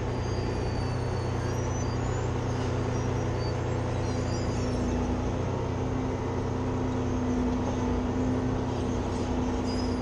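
Wirtgen asphalt milling machine's diesel engine running steadily, with a constant low hum and a steady tone.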